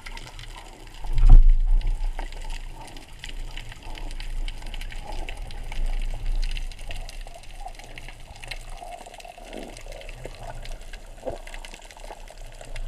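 Muffled underwater water noise heard through a camera's waterproof housing on a speargun: a low rumbling wash with a louder surge about a second in, and scattered faint clicks and crackles.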